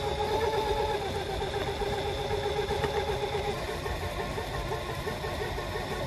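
Compact lathe spindle motor running with a drill bit in its chuck, boring into a hand-fed aluminum part: a steady whine that turns into a quick pulsing a little past halfway.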